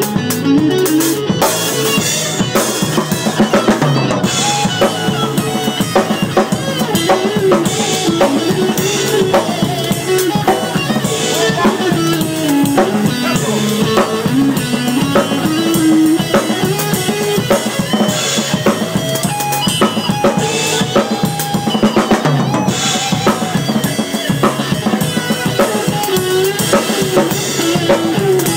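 Live band playing a song at soundcheck, with the drum kit to the fore: bass drum, snare and rimshots over a moving melodic line.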